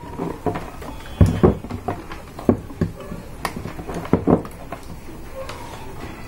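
Scattered knocks and clicks of cables, a loose speaker and an amplifier back panel being handled on a workbench while a power cord is connected. It settles into a quiet background after about four and a half seconds.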